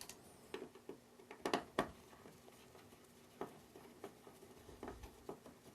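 Screwdriver working the mounting screws of a wall outlet: a few faint, irregular metal clicks and scrapes, the loudest pair about a second and a half in.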